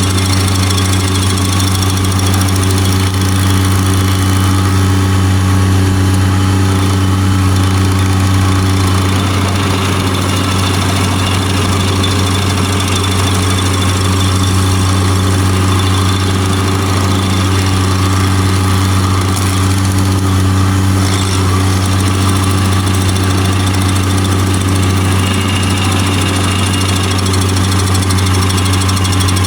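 Bobcat MT100 mini skid steer engine running steadily under load as it drives an SG30 stump grinder attachment cutting into a small cedar stump.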